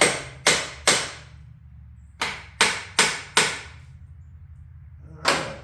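Hammer blows on a steel engine-mounting bolt, driving it out of the frame of a Harley-Davidson Ironhead motorcycle engine; the bolt is bound up under the engine's weight. Three sharp strikes, a pause of about a second, four more in quick succession, then one more near the end.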